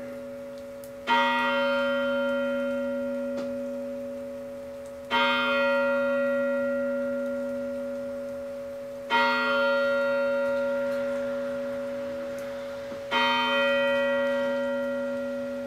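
A large bell tolling, struck four times about four seconds apart, each strike ringing on in a long, slowly fading hum.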